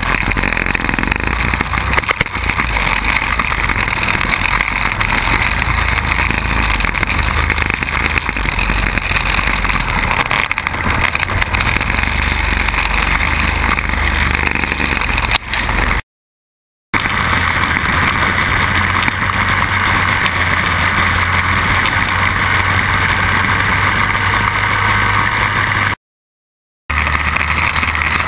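Quad bike (ATV) engine running at speed, heard from a camera mounted on the bike, with a steady rush of wind and road noise. The sound cuts out twice for under a second.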